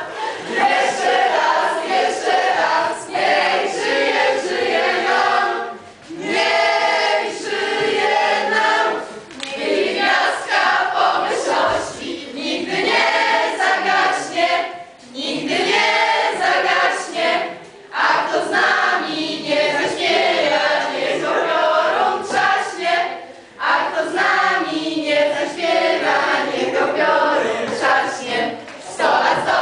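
A group of young people singing a song together, in phrases separated by short pauses.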